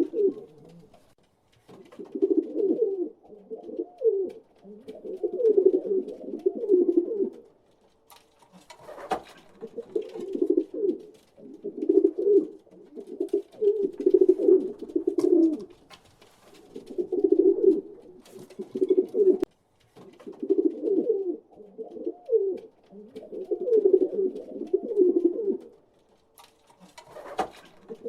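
Pigeons cooing: low, warbling coos in repeated bouts of a few seconds with short pauses between them. A couple of brief sharp noises come about a third of the way in and near the end.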